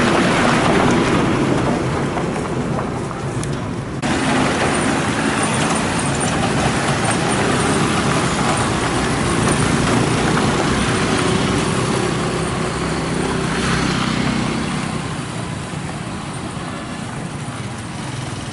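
Motor vehicles passing close by on a rough road: a loud, steady mix of engine and tyre noise. The sound changes abruptly about four seconds in.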